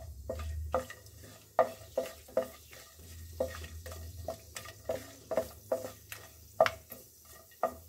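Wooden spatula scraping and knocking around a nonstick kadhai in repeated, irregular strokes, stirring whole spices (cinnamon, black cardamom, cloves) in hot oil, with a light sizzle of the oil.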